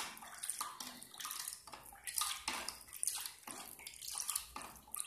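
Plastic spoon stirring a watery liquid in a plastic bowl: repeated swishing and sloshing strokes, about two a second, with light scrapes of the spoon against the bowl. It is the thin hand-wash base being mixed after perfume is added.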